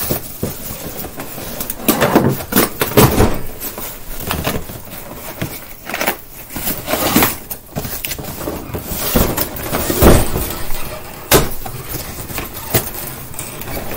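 A cardboard box of cage parts being handled and unpacked: irregular rustling and scraping with scattered knocks, the strongest about ten seconds in.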